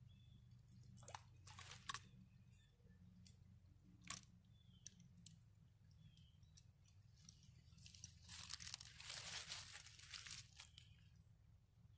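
Mostly near silence with a few short sharp clicks in the first half, then a couple of seconds of crunchy rustling, as of dry leaves and brush being moved underfoot on the bank.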